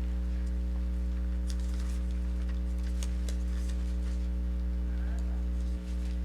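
Steady electrical mains hum, with faint scattered rustles and ticks over it.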